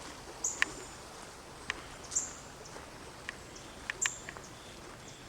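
High, thin bird calls repeating every second and a half or so over a quiet outdoor background, with a few sharp ticks in between.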